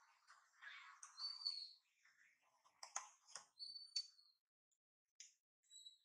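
Near silence with a few faint high-pitched chirps and some soft clicks.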